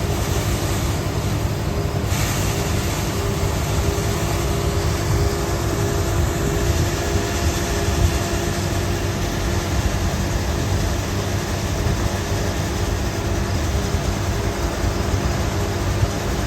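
Combine harvester running steadily: a constant low engine drone with a dense mechanical rush over it.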